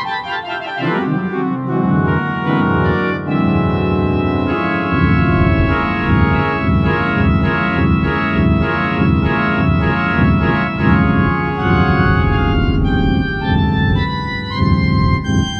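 Organ music: sustained chords over a low bass that pulses about twice a second.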